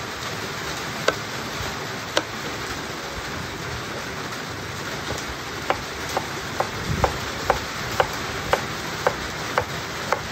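Heavy rain falling steadily, with a knife slicing an onion against a wooden cutting board: two single strokes in the first couple of seconds, then a steady run of about two strokes a second from about halfway on.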